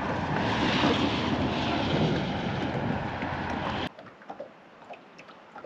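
Wind buffeting the microphone in a steady rush, cutting off abruptly about four seconds in; after that it is much quieter, with a few faint clicks.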